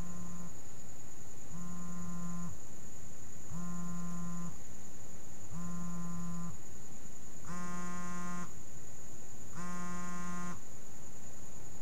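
Mobile phone on vibrate buzzing with an incoming call: six buzzes of about a second each, two seconds apart, the last two harsher and rattlier.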